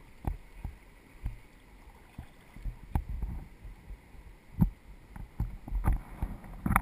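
Kayak paddle strokes in calm river water: the blades dip and splash at an uneven pace, roughly once a second or so, with a few sharper knocks among them, over a low trickle of moving water.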